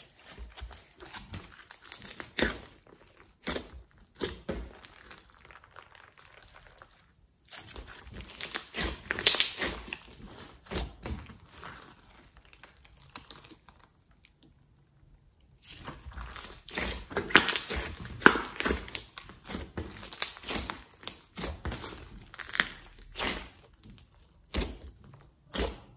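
Hands squishing, stretching and pressing a thick glossy slime mixed with clay, giving runs of small sticky clicks and crackles. It comes in bouts with two short quiet pauses and cuts off suddenly at the end.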